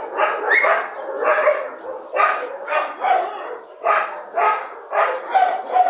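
Dogs barking over and over, about two barks a second, with no pause.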